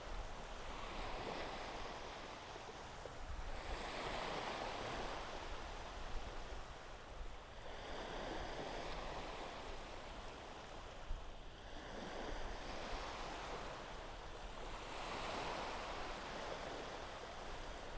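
Ocean surf washing onto a sandy beach, rising and falling in slow, repeated swells every few seconds.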